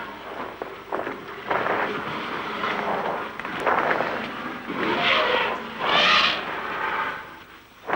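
African elephant cows crowding and pushing at a drugged bull in dense bush, making a series of harsh, noisy bursts, loudest about five and six seconds in.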